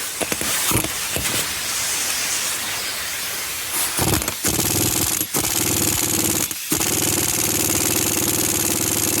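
A hiss for the first few seconds, then, from about four and a half seconds in, an air tool hammering fast and steadily on a seized, over-torqued lug nut.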